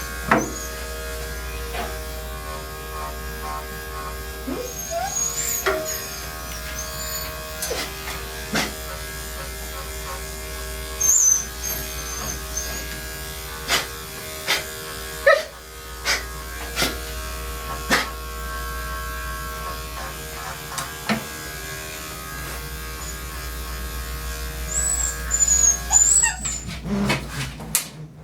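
Electric dog clippers run steadily on a Portuguese Water Dog's coat, with scattered sharp clicks and knocks. The dog whimpers in short high cries a few times, mostly near the end.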